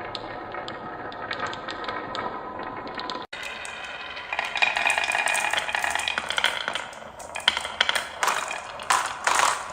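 Marbles rolling and rattling along a marble run track, with many small clicks as they knock against the track and each other. After a brief break about three seconds in, the rattling gets louder, ending in several sharp separate clicks.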